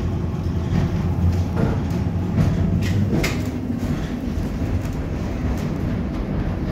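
Heritage electric tram running along its rails: a steady low rumble, with a few rattles and clanks of the car body about two to three seconds in.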